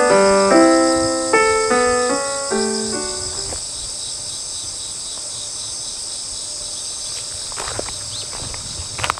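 A short piano melody of single notes dies away in the first few seconds, leaving a steady, high-pitched chorus of insects chirring.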